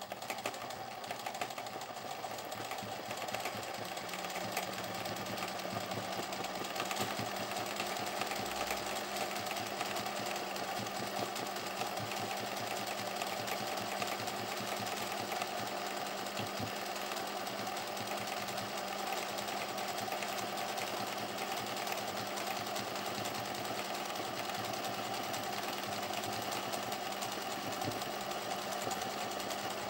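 Singer 20U industrial zigzag sewing machine running steadily, stitching a dense zigzag satin stitch through a felt appliqué, with a fast, even needle rhythm and no pauses.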